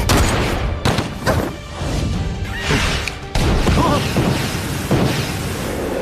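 Dramatic soundtrack music overlaid with action sound effects: several heavy, sudden impacts and whooshes.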